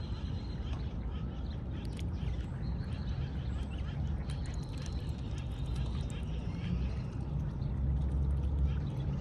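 Outdoor ambience by a lake: a steady low rumble, with faint high bird calls and a few scattered clicks.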